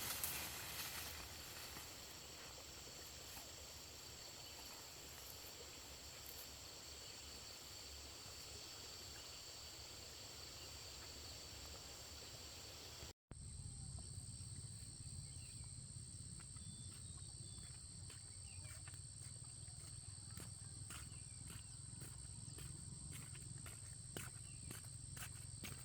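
Faint outdoor ambience of insects chirring in steady high tones. About halfway through it cuts abruptly to a similar bed with a low hum and scattered light clicks.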